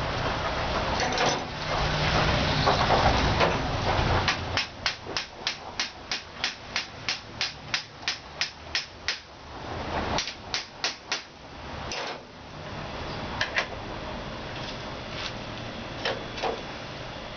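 Hammer blows on metal, a quick even run of about four strikes a second lasting some five seconds, then a few more blows and scattered knocks. Before the hammering there are a few seconds of rough, noisy scraping.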